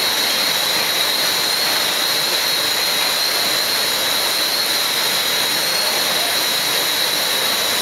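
Billet continuous casting machine in operation: a loud, steady hissing roar with a thin high whine on top, as the red-hot strand is cooled amid steam.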